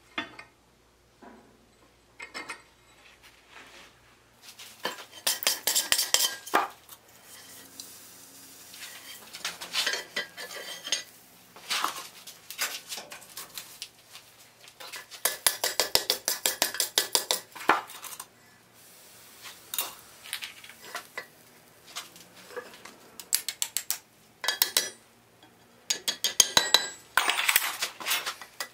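Blacksmith's hand hammer forging the red-hot end of a flat iron bar on an anvil: quick runs of ringing metal-on-metal blows with short pauses between them.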